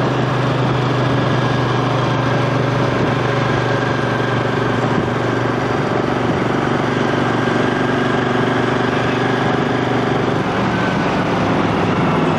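Vehicle engine running steadily at low revs, an even low hum over road noise.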